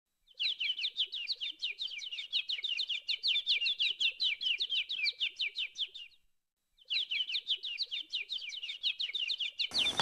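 Canary singing: a fast, even run of repeated sweeping chirps, several a second. It breaks off for a moment about six seconds in, then starts again.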